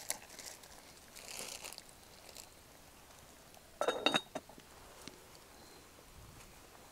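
Cast iron lid of a small Lodge camp Dutch oven set onto the pot: a quick cluster of metallic clinks about four seconds in, with a short ring.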